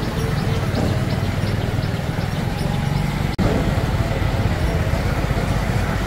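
JCB 3DX backhoe loader's diesel engine running with a steady low rumble, broken by an abrupt instant of silence a little past halfway, after which it resumes slightly louder.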